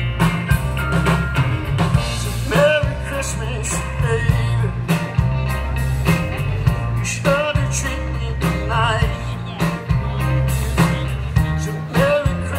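Live band music: a singer with vibrato over drums and guitar in a rock-and-roll, country-blues style.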